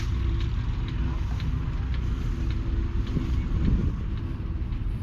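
1969 Massey Ferguson 165's 3.5-litre four-cylinder diesel engine running steadily.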